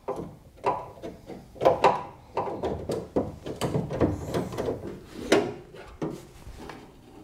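Irregular clinks and knocks of hands and a nut working inside a pickup's hollow steel door shell, fitting the outside door handle onto its studs. The knocking dies down near the end.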